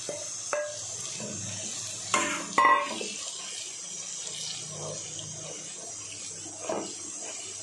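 Onions, ginger-garlic paste and freshly added chopped tomatoes frying in oil in a non-stick pan, a steady sizzle with a wooden spatula stirring through them. Two short clanks a little over two seconds in are the loudest sounds.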